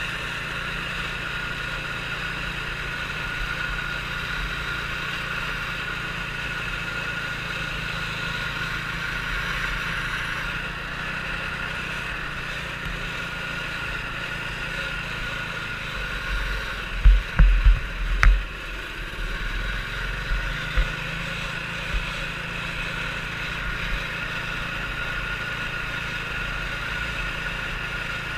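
Small engine of a 120cc youth racing snowmobile running steadily, with a cluster of loud low thumps about two-thirds of the way through.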